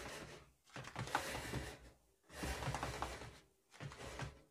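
Faint rustling and handling noise with a few light clicks, in four short bursts with quiet between them.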